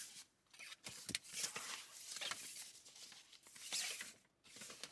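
A fabric windshield sunshade being unfolded and put up inside a car, rustling and scraping close to the microphone. The rustling comes in short, uneven spells with a few clicks and brief pauses.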